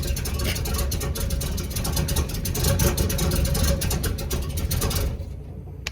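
334 cubic-inch small-block Chevy stroker V8 running with an uneven, pulsing exhaust note; the freshly broken-in engine still needs a little tuning. About five seconds in, the sound turns quieter and duller.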